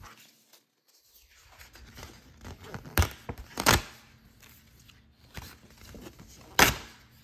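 Cardstock scratch-off lottery tickets being handled and laid on a woven placemat: soft rustling of the tickets with three sharp knocks, two about three seconds in and one near the end.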